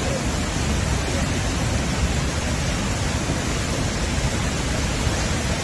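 Floodwater rushing down a dam spillway into the churning river below, a steady, even rushing of water.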